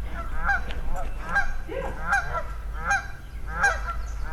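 Waterfowl calling repeatedly: short, clipped calls at roughly two a second.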